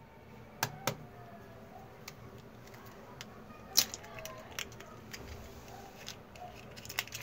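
An egg cracked into a stainless steel bowl: a few short sharp clicks and taps of shell against the metal, the loudest about four seconds in.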